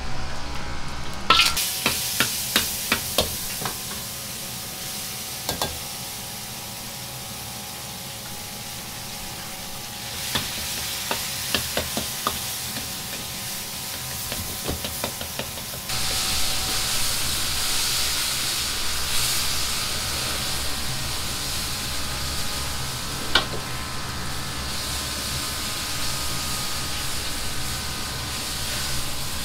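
Ground meat sizzling in a wok over a gas wok burner, which keeps up a steady low hum. A metal ladle clanks and scrapes against the wok in bursts near the start and again about a third of the way in. The sizzle grows louder a little past halfway.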